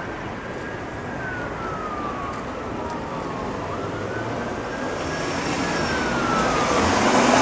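Police car siren on a slow wail, its pitch rising and falling about every three to four seconds over street traffic noise, growing louder near the end.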